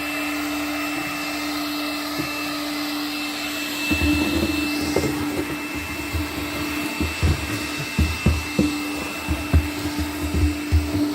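18-volt Makita cordless handheld vacuum running steadily with a constant motor whine. From about four seconds in, irregular low knocks and bumps join it.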